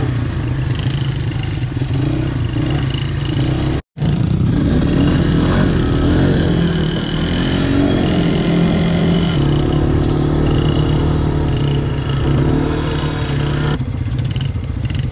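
Motorbike engine running steadily, with a sudden break in the sound just before four seconds in.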